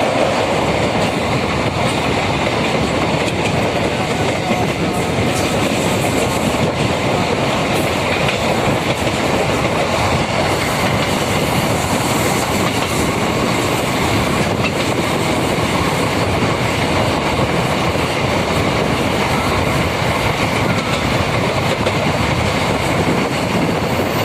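MEMU electric train running along the track, with a steady rumble and the clickety-clack of its wheels over the rail joints.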